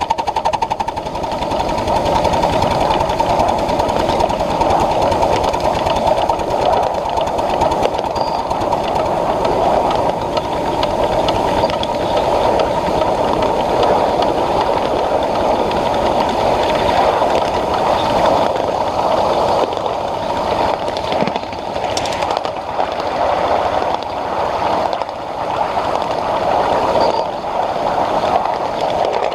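Ride-on live-steam Pacific locomotive and its passenger cars running along the track, heard as a steady rumble. Near the end there are a few sharp clicks and knocks.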